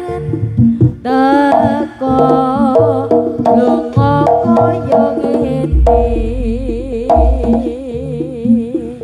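Live Javanese jaranan gamelan music: drums beating under a melody that bends and glides, which settles into a long, wavering held note in the second half. A deep low boom sounds beneath it about six seconds in.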